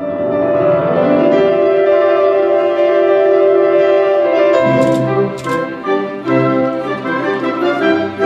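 Classical-style background music: long held chords for the first few seconds, then a livelier passage of shorter notes from about halfway through.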